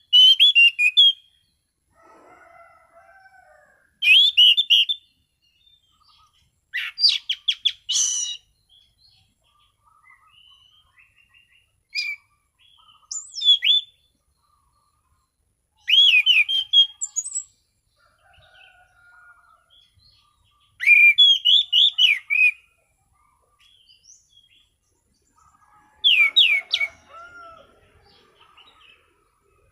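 Anis cendana thrush singing: a short, loud phrase of quick, clear whistled notes about every four seconds, with soft quieter warbling in the gaps between phrases.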